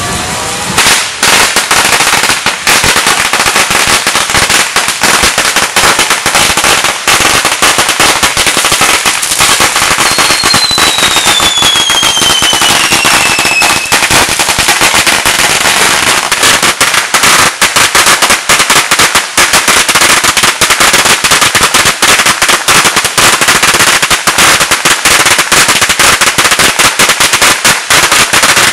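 Consumer firecrackers going off in a rapid, continuous string of sharp bangs and cracks. About ten seconds in, a whistle falls in pitch for some four seconds over the bangs.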